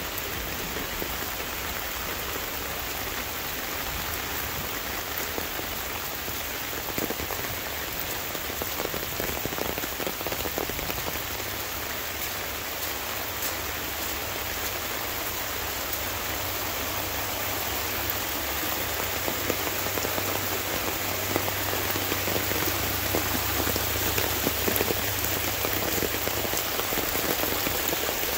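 Steady rain falling, with muddy stormwater runoff rushing down a grassy drainage ditch; the sound grows a little louder in the second half as the water runs over the rock-lined stretch.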